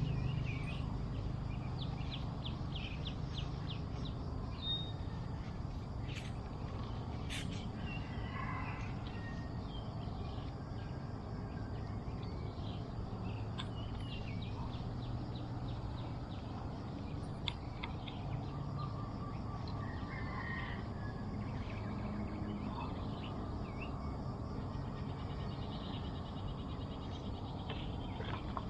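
Birds chirping and trilling on and off over a steady low outdoor rumble, with a few sharp clicks a quarter of the way in.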